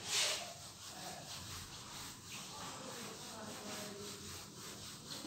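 Handheld whiteboard eraser wiping marker writing off a whiteboard in repeated rubbing strokes, the first stroke the loudest.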